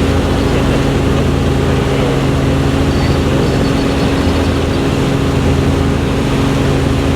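Helicopter's engine and rotor drone, a loud steady hum of several low tones over an even rushing noise.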